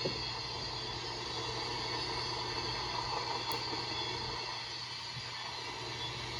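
Train passing: a steady rumble and clatter of rail cars rolling by, with a sharp click right at the start.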